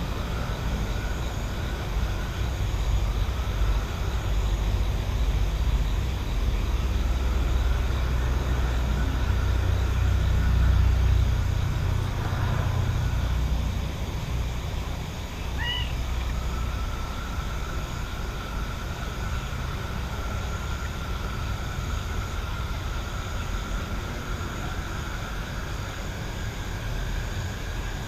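Night countryside ambience: a distant engine's low rumble swells over the first half and fades about halfway through, under a steady thin drone of night insects, with one short bird chirp just after the rumble fades.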